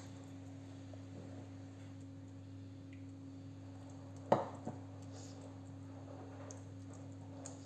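Pastry brush dabbing melted butter onto phyllo sheets in a glass baking dish, soft and faint over a steady low hum. A little over four seconds in there is one sharp tap, with a smaller one just after.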